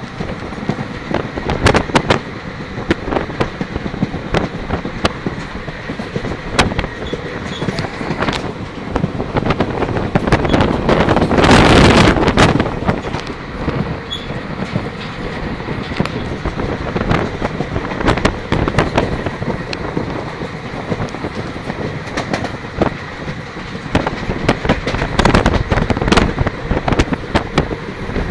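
Passenger train running at speed, heard from an open carriage door: steady rumble with sharp, irregular clacks of the wheels over the rails and wind rushing over the microphone. A louder rush swells for about two seconds near the middle.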